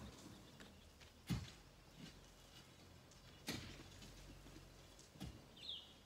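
Three faint, sharp knocks about two seconds apart, the first the loudest, typical of a hand tool striking rock while a large rock is being knocked down, over a low steady hum. A short high chirp near the end.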